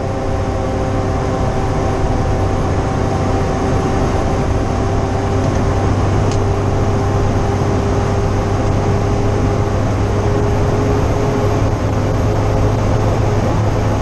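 Fire engine driving at a steady speed, heard from inside the cab: a steady engine drone under constant tyre and road noise.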